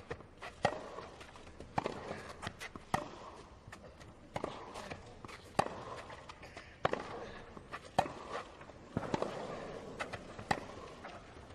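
Tennis ball struck back and forth by rackets in a baseline rally, one sharp crack a little more than once a second, over a low background hum.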